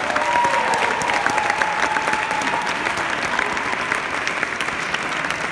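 Crowd applauding with dense, steady clapping, with one long whoop over the first couple of seconds.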